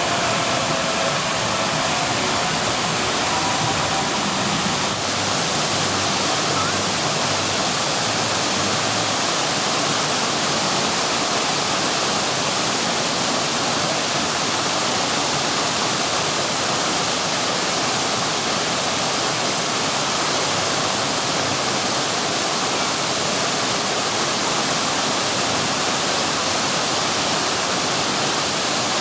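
Steady, even rush of falling or splashing water.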